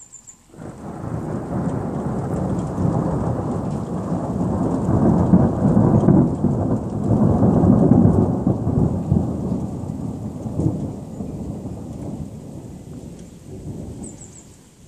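A long roll of thunder: a low rumble that starts about half a second in, swells to its loudest around the middle and slowly dies away near the end.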